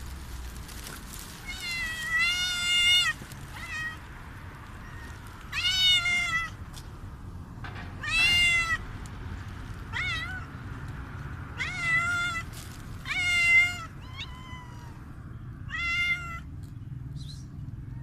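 A hungry street cat meowing loudly and repeatedly, about nine meows of varying length with short gaps between them.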